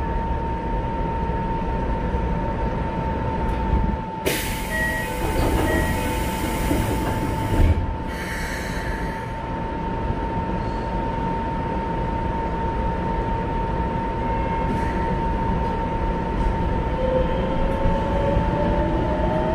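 Inside a Keikyu 1500-series train car stopped at a platform: the doors close with a loud hiss starting about four seconds in, with two short beeps, and shut with a thump near eight seconds. A steady hum from the car's equipment runs underneath. Near the end, the Mitsubishi GTO-VVVF inverter starts up with a rising whine as the train begins to move.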